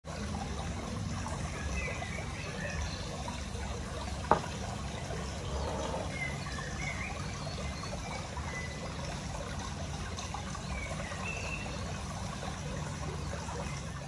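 Water trickling steadily, like a small stream, with a few faint high chirps. There is one sharp click about four seconds in.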